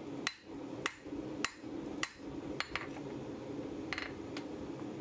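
Hand hammer striking red-hot steel on an anvil to taper a hardy cut-off tool: sharp blows about every half second or so, growing lighter and sparser after about three seconds. A steady low hum runs underneath.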